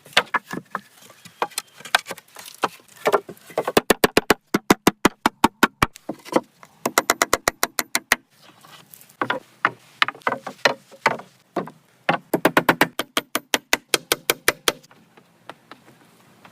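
Rapid runs of sharp knocks or taps, several a second, coming in bursts with short pauses between them.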